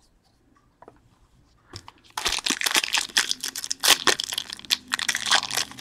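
A few faint clicks, then from about two seconds in a dense, irregular crinkling and tearing of trading-card packaging being torn open.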